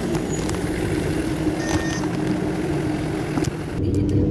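Engine of a Hong Kong green minibus running close by as it pulls up to the stop, a steady low drone. Near the end this gives way to the engine and road rumble inside a moving bus.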